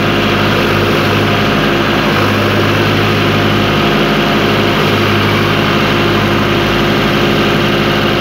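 Diesel tractor engines running steadily at close range, the nearest a John Deere 5050D, as a Sonalika DI 50 RX tows it out of deep mud. The engine note holds an even pitch, with no revving.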